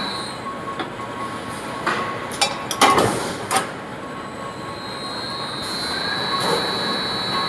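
Metalworking machinery running with a steady high-pitched whine that fades out at the start and comes back about five seconds in, and several sharp metallic knocks in the first four seconds.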